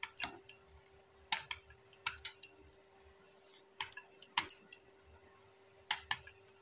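Rolling pin rolling out radish paratha dough on a round board: irregular sharp clicks and clinks, often in pairs, about two a second, as the pin knocks against the board, over a steady faint hum.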